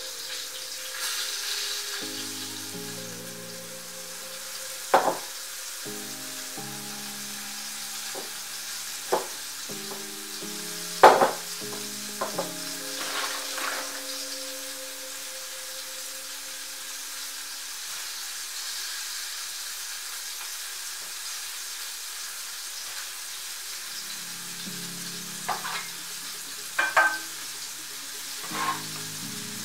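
A few sharp taps and knocks as hands and a plastic bench scraper work sourdough dough on a wooden countertop, the loudest about eleven seconds in and a cluster near the end. Under them run a steady hiss and soft background music with sustained notes.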